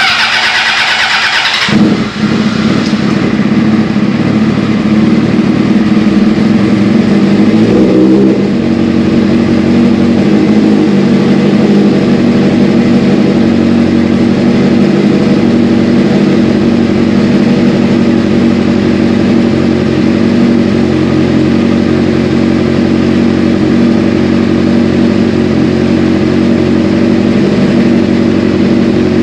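Honda CBR600RR's inline-four engine started: a short burst of cranking, then it catches about two seconds in and runs steadily. It runs a little harder until about eight seconds in, then settles to an even idle.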